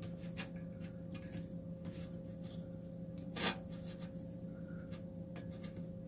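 Small clicks and scrapes of hands pulling pieces of a cracked washer motor coupling off the shaft, with one louder scrape about three and a half seconds in, over a steady low hum.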